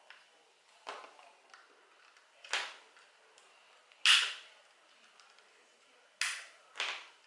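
Plastic front cover of a Yi 2 4K action camera being pried at with fingers: five sharp plastic clicks and snaps as the clips are worked loose. The loudest comes about four seconds in, and the last two come close together near the end.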